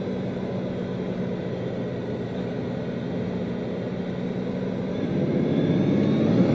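Bugatti Veyron's quad-turbo W16 engine and tyre noise, heard from inside the cabin while cruising, with a steady low drone. About five seconds in it swells louder as the car accelerates.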